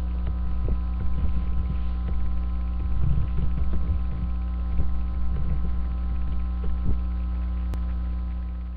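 Steady electrical mains hum picked up through a headset microphone, with a few faint soft bumps.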